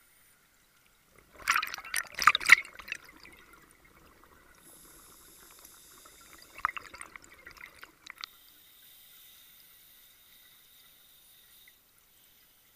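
Scuba diver's regulator exhaust bubbles, heard close up underwater: two bursts of bubbling about five seconds apart, the first louder, with a faint hiss between them.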